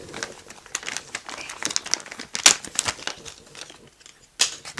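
Packaging being crinkled and handled as a newly bought RC car part is unwrapped, in irregular crackling rustles with a brief pause near the end.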